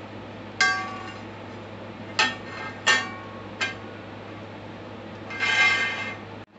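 A metal straightedge clinking as it is set down and shifted on a large drilled disc on a drill press table: four sharp, ringing clinks over about three seconds, then a rattling scrape lasting about a second near the end.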